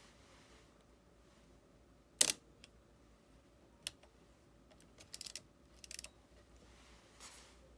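Epson R-D1 digital rangefinder camera's shutter firing: one sharp click about two seconds in, then a lighter single click and two short runs of rapid small mechanical clicks a few seconds later.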